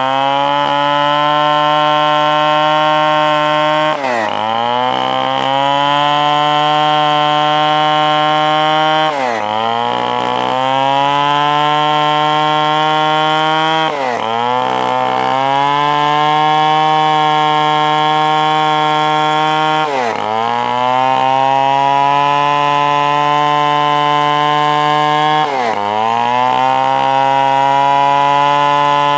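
Stihl 070 two-stroke chainsaw running at high revs while cutting wood, its pitch dropping sharply and climbing back about every five seconds.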